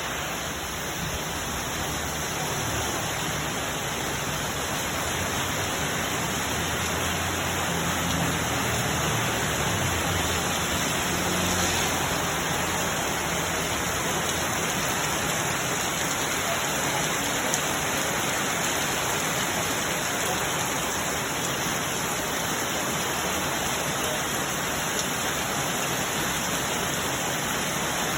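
Steady rain falling, an even, unbroken hiss. A faint low drone sits under it during roughly the first dozen seconds.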